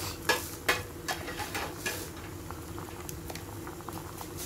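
Spinach and corn soup boiling hard in an aluminium pot, bubbling steadily with irregular pops and crackles, a few louder pops in the first two seconds.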